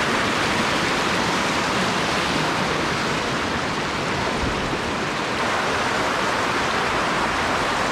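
Steady rushing of river water, an even loud rush with no breaks.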